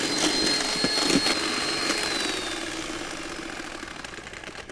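Electric hand mixer running with its beaters in a stainless steel bowl of egg and sugar, a steady motor whine that slowly drops in pitch and fades over the second half as it winds down.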